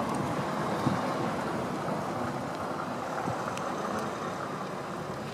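Steady rushing outdoor background noise that eases off slightly toward the end, with no bell strikes.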